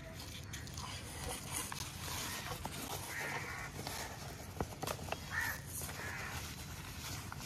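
A bird calling a few times, about three seconds in and again after five seconds, with a few light clicks and taps of handling between.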